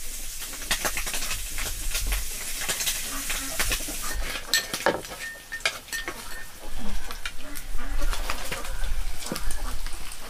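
Food sizzling in a wok over a wood fire, with a wooden spatula stirring, scraping and knocking against the pan in frequent sharp clicks.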